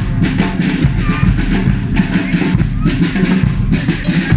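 Marching band's drum section playing a cadence on bass drums and snare drums: a steady rhythm of loud drum strikes with no brass playing.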